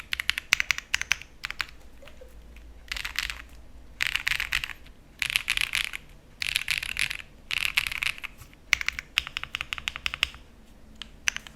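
Jris75 mechanical keyboard with Sarokeys BCP linear switches being typed on: single keystrokes, then five runs of fast typing about a second long with short pauses between, then a few scattered keystrokes.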